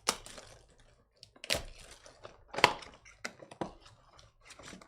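A run of sharp taps and clicks from a trading-card box and its packs being handled and opened on a table, the loudest about two and a half seconds in.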